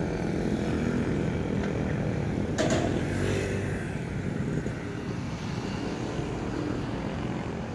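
Steady rumble of passing road traffic, with a short sharp knock about two and a half seconds in.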